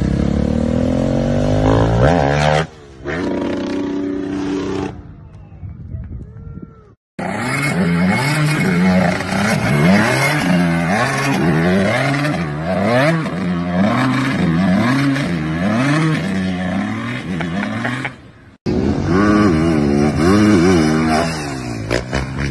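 Dirt bike engines revving across a string of short clips, the pitch rising and falling again and again as the throttle is worked. The sound breaks off at each cut, with a quieter stretch about five to seven seconds in.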